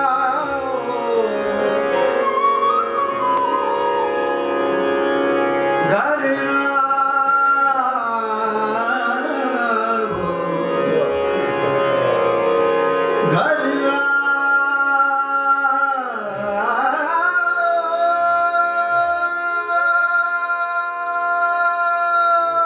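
Male vocalist singing long, gliding melodic phrases in Hindustani classical style, accompanied by harmonium and flute holding steady notes. In the second half the held instrumental notes carry more of the sound, with only brief vocal swoops.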